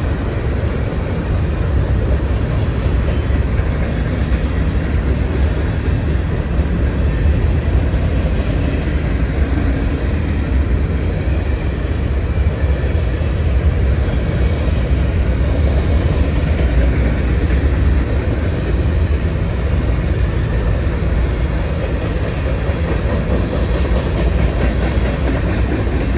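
Freight train of covered hopper and tank cars rolling past: a steady, loud rumble of steel wheels on rail.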